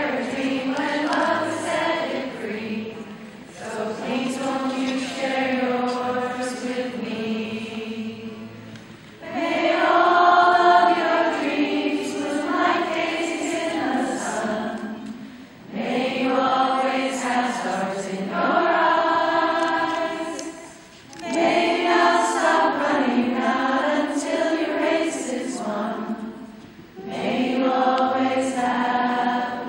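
A group of voices singing a song together in long sung phrases, with short pauses between phrases about every five to six seconds.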